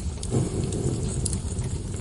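Wood fire burning in a fireplace: a steady low rumble of flames with scattered sharp crackles and pops, and a soft low thump about a third of a second in.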